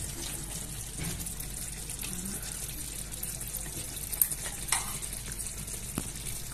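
Chicken tagine in its uncovered clay dish simmering over the heat, a steady bubbling sizzle. A few light clicks in the second half.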